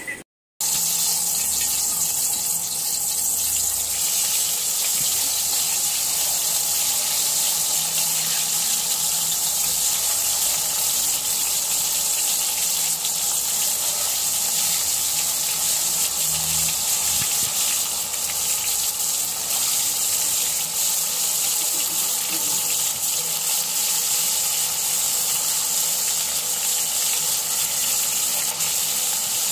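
Besan-and-spice-coated eggplant slices deep-frying in hot oil, a loud steady sizzle that starts abruptly within the first second.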